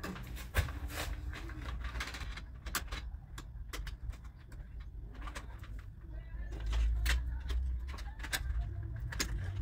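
Stiff copper house wires being handled and twisted together at an electrical box: a string of short clicks and scrapes, over a low rumble that swells about seven seconds in.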